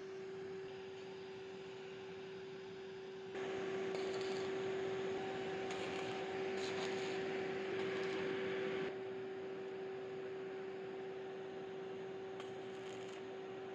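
A steady hum with a faint higher overtone. A hiss rises over it from about three seconds in and drops away again near nine seconds.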